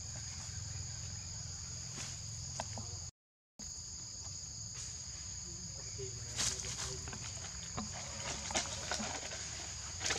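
Steady, shrill drone of forest insects in two high bands over a low background hum, cutting out for about half a second a third of the way through. From about six seconds in come scattered light rustles and taps, as of a small monkey moving over leaves and stone.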